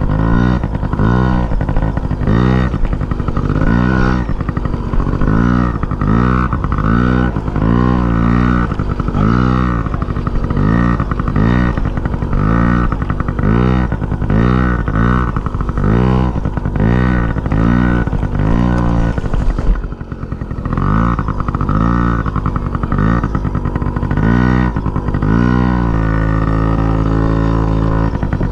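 A motor vehicle's engine running steadily, with a regular pulsing rhythm in its sound and a brief dip about twenty seconds in.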